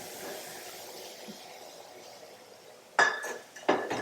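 Kitchenware clinking: two sharp clinks about three seconds in, the first ringing briefly, after a steady hiss.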